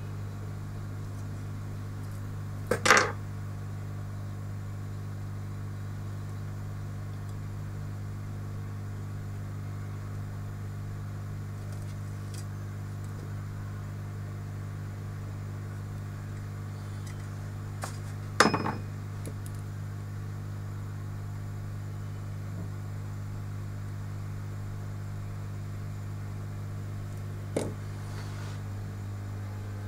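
Steady low electrical hum from the repair bench equipment, with three sharp clicks of small hard objects knocking on the bench: a few seconds in, just past the middle, and near the end.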